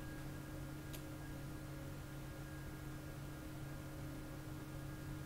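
Low room tone: a steady electrical hum made of several constant tones over faint hiss, with one faint tick about a second in.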